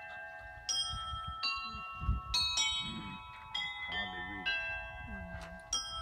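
Church bells ringing, bells of different pitches struck about once a second, each note hanging on long after the strike. Faint voices underneath.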